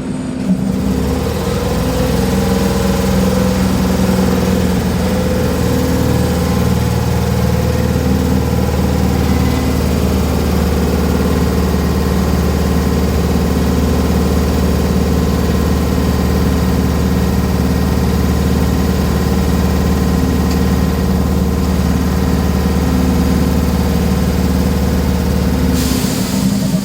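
HB-2000 air compressor on a Tokyu 8500 series electric train running with a steady, rough note over the idling train's hum. It starts about half a second in and cuts out near the end with a short burst of hiss.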